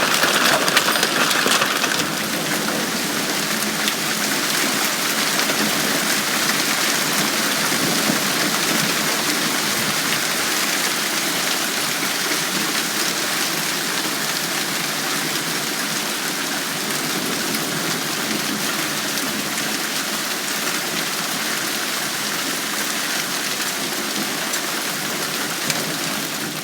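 Hail falling hard and without a break: a dense, even patter of countless small impacts, a little louder in the first two seconds. Some of the hailstones are about dime-sized.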